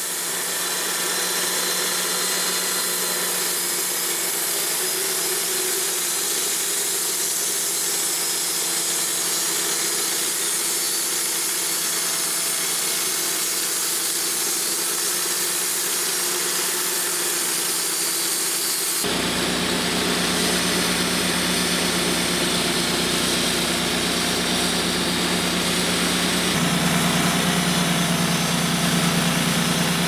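Wood-Mizer LT35 portable bandsaw mill running steadily, its band blade cutting through a white oak log. The sound changes abruptly about two-thirds of the way in, when the engine's deeper hum comes to the fore.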